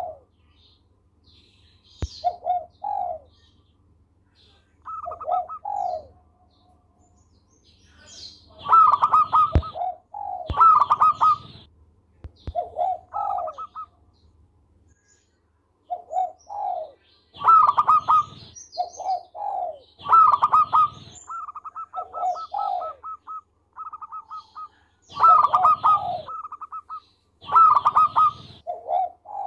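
Zebra dove (perkutut) singing, repeating its cooing phrase of quick rolling coos again and again with short pauses between. About two thirds of the way through, one phrase breaks into a fast run of short, even notes.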